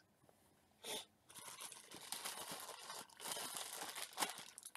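Plastic packaging being handled, a faint irregular crinkling crackle that starts about a second in, after one brief rustle.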